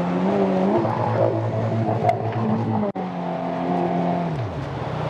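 Outboard motor of a jet-drive PVC boat running under power, its revs shifting. There is a brief gap about three seconds in, and the revs drop away near the end.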